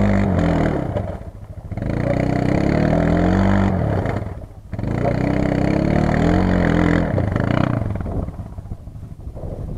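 Quad bike (ATV) engine revving hard in three long surges, the pitch rising and then falling away between them, dropping back and fading over the last couple of seconds.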